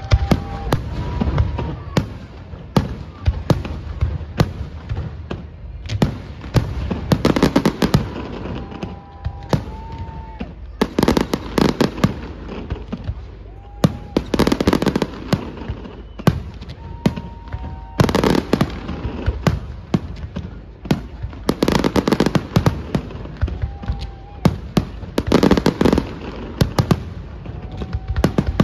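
Fireworks display: aerial shells bursting with sharp bangs, and dense crackling clusters about every three to four seconds.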